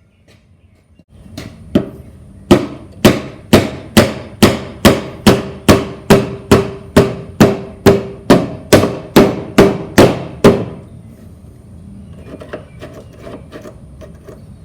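A hammer striking metal about twenty times at an even pace, roughly two blows a second, each with a short ring. Softer small clinks follow near the end.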